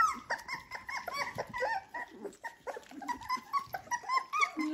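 A litter of 23-day-old Dalmatian puppies squeaking and whining as they feed at the bowl, many short high calls a second overlapping one another.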